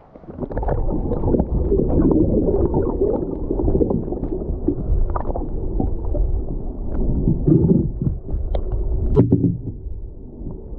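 River current heard underwater through a submerged camera, a dull, muffled rushing with scattered clicks and knocks. It swells suddenly about half a second in as the camera goes under the surface.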